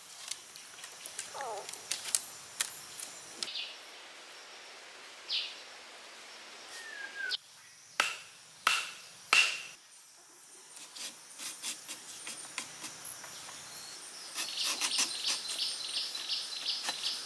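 A wooden stake driven into the ground with three sharp knocks, about two-thirds of a second apart, over forest birds and insects chirping. Near the end a fast repeated chirping comes in.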